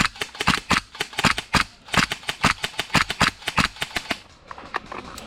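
Airsoft guns firing rapid strings of shots, about six or seven a second with short pauses, until the shooting stops a little after four seconds in; a few scattered shots follow.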